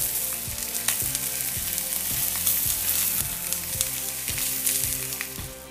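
Mackerel fillets sizzling in an oiled ridged grill pan over the flame: a steady frying hiss with scattered small pops and crackles.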